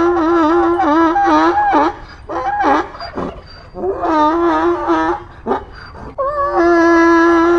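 Donkey braying: long pitched calls with a wavering pitch, broken by short pauses, the same bray starting again about six seconds in.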